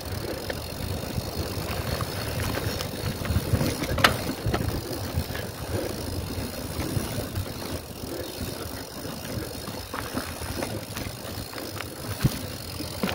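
Mountain bike being ridden over rough trail: a steady rumble of tyres and rattling bike parts, with sharp knocks about four seconds in and again near the end.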